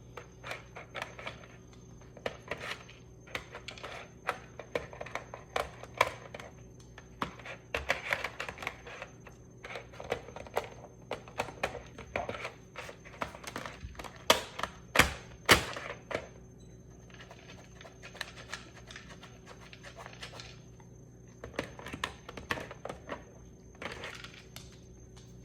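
A dog playing with and chewing a toy: irregular clicks, taps and knocks, with a cluster of louder knocks about fifteen seconds in.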